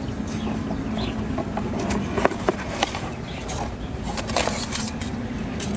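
Light clicks and knocks of kitchen tools being handled on a wooden board, scattered and strongest near the middle, over a steady low hum.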